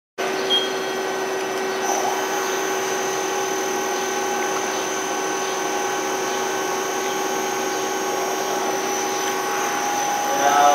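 Kia Turn 15 CNC turning center running, a steady machine hum and whine made of several steady tones over a haze of noise. It cuts in just after the start, and one lower tone drops out near the end.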